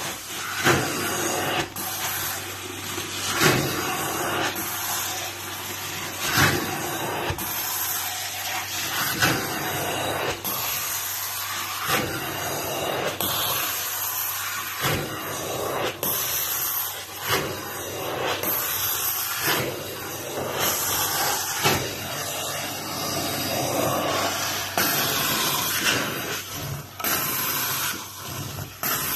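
Carpet extraction machine running steadily, its vacuum hissing as a stair wand is worked over stair carpet, with short knocks every few seconds.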